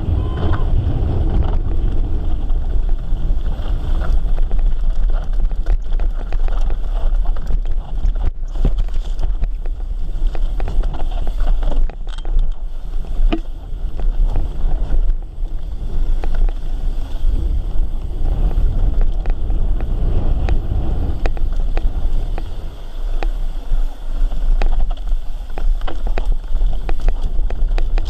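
Mountain bike ridden over a dry dirt trail: wind buffeting the microphone and tyre rumble, with frequent short clicks and knocks from the bike rattling over the rough ground.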